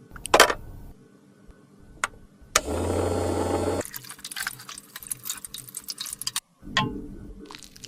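Close-up handling of cosmetics and small tools: sharp clicks and light taps, with a steady hissing sound over a low hum lasting about a second near the middle.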